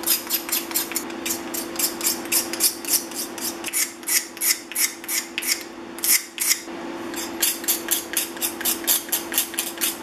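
Steel card scraper with a burred edge scraping the old finish off a hardwood plane knob in quick short strokes, about four a second, with a pause of about a second just past the middle. The burr is cutting and peeling the old finish off the wood.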